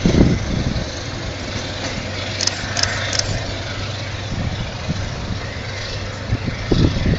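DJ class diesel-electric locomotive running with a steady low hum as it pulls the train away into the distance, with gusts of wind buffeting the microphone at the start and again near the end.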